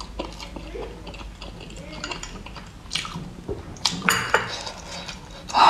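Eating utensils clinking against a glass rice bowl and serving dishes during a meal, with a few sharp clicks about three and four seconds in.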